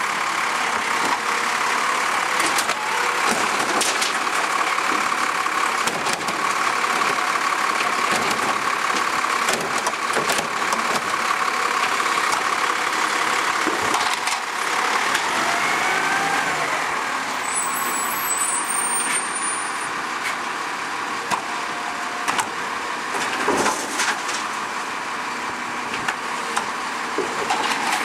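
Automated side-loader garbage truck running, with a steady whine from its hydraulics while the side arm works, and scattered clunks. The pitch glides about halfway through, and the truck moves off near the end.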